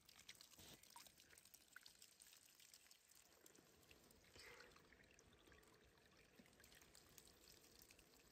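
Near silence: a faint hiss with scattered small ticks.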